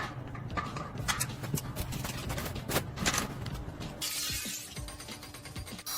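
Background music with sharp clattering knocks over it; the sound changes abruptly about four seconds in.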